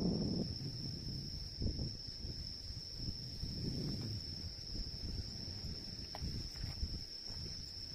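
Crickets trilling in one steady high-pitched chorus, over irregular low rumbling surges.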